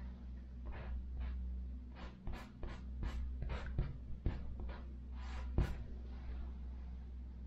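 Paintbrush stroking across a canvas: a run of about a dozen short scratchy strokes, over a steady low electrical hum.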